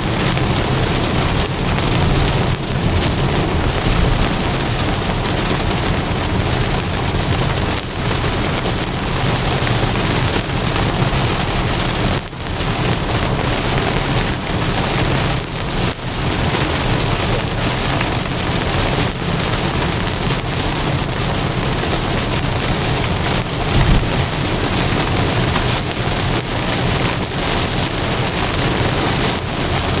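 Rain and tyre noise from a 2023 Tesla Model Y driving on a wet highway: a steady hiss of rain and spray over a low road rumble, with a brief dip about twelve seconds in.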